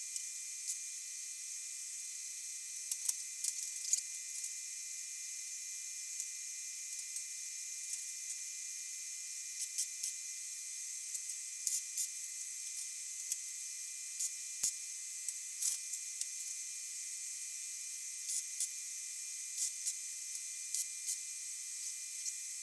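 MIG welder laying short tack welds on expanded steel mesh: brief crackling spits at irregular intervals, heard over a steady high hiss.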